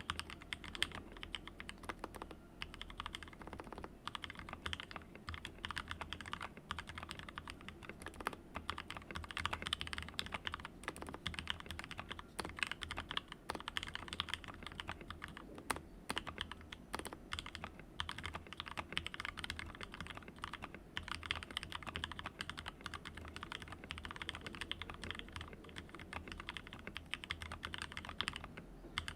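Continuous fast typing on an XD60 Rev 3 mechanical keyboard with Gateron Yellow linear switches and blank keycaps: a dense, unbroken run of key clicks and clacks as the keys bottom out and return.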